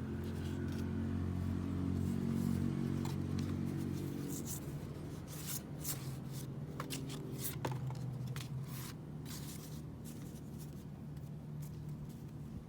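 Album packaging being handled: scraping and rustling of card and plastic, with a few sharp clicks, mostly from about four to nine seconds in, over a steady low rumble that is loudest in the first few seconds.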